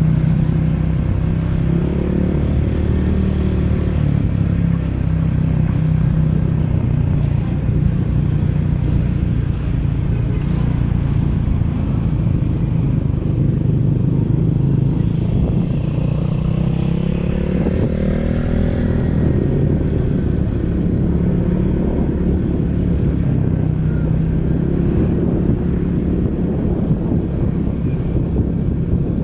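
Motorcycle engine running steadily at riding speed, a constant drone with wind and road noise over it.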